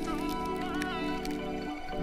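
Background music: sustained synth-like chords with a gliding melody line over them, the chord changing near the end.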